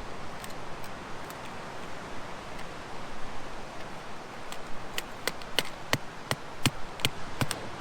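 Cooked lobster claws being cracked open with a knife: a run of sharp clicks and cracks of shell that starts about halfway through and comes quicker near the end, over a steady hiss.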